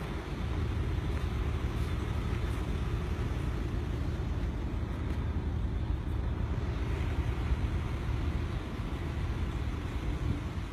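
Wind buffeting the microphone on an exposed hilltop: a steady, low, fluttering rumble.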